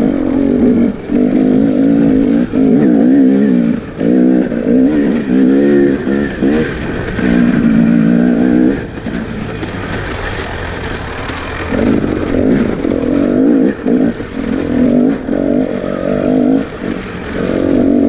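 Off-road motorcycle engine revving up and down under the rider's throttle, pitch climbing and dropping with short cut-offs as the throttle is rolled off and on. About halfway through it runs quieter and lower for a few seconds, then revs hard again.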